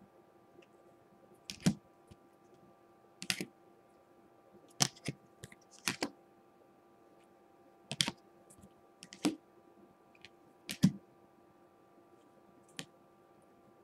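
Rigid plastic toploaders holding trading cards being set down one by one on a wooden table: about nine sharp clacks, one every second or two.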